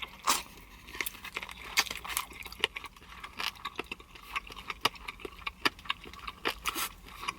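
Close-up eating sounds of a person chewing and working the meat off a honey garlic chicken wing: a steady run of irregular sharp mouth clicks and smacks.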